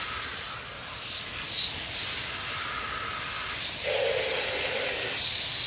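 Garden-hose water spray hissing steadily as it hits a truck's alloy wheel and tyre, rinsing leftover soap suds out of the wheel. About four seconds in, a lower-pitched hum joins it for about a second.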